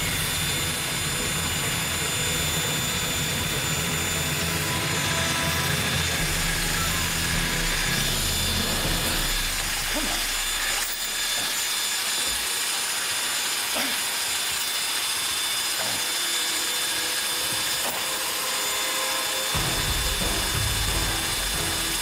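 Electric demolition hammer running with a steady mechanical rattle and hum; its deep rumble drops away for several seconds midway and comes back near the end.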